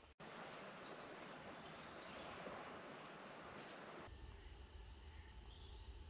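Faint woodland ambience: an even hiss for about four seconds, then a change to a low rumble, with a few faint bird calls.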